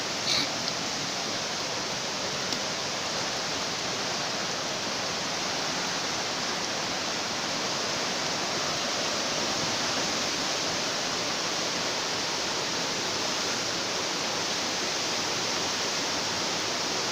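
Steady rushing of heavy rain and floodwater, an even hiss that does not let up.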